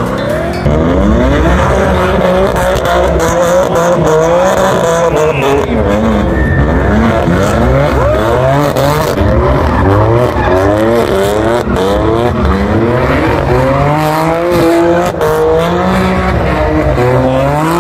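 BMW M4's twin-turbo straight-six revving up and down over and over as the car spins donuts, with its rear tyres squealing and skidding on the pavement throughout.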